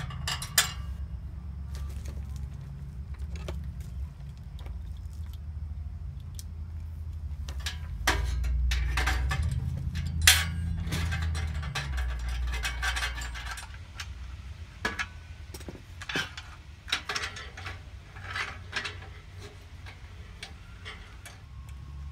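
Irregular metal clinks and rattles as light bar brackets, bolts and nuts are handled and fitted against a steel bull bar, over a low rumble that grows louder for a few seconds in the middle.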